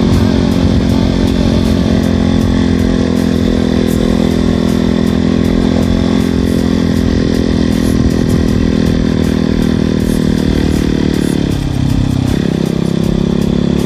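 Motorcycle engine running at steady high revs while riding at speed, with wind noise over it. Near the end the revs dip briefly and then pick up again.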